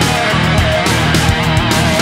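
Loud rock music with electric guitar and drums.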